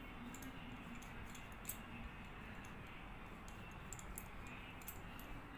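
Faint scattered light clicks and rubbing over a steady low hiss, from fingers and fingernails being rubbed together to work in nail cream.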